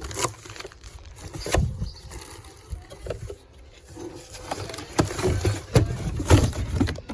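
Handling and unpacking noise: irregular knocks, thumps and rustling as a new chainsaw and its packaging are moved about, with the loudest thumps past the middle.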